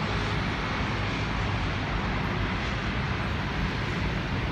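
Steady rumble of city traffic from a congested intersection: many vehicles idling and creeping through a jam.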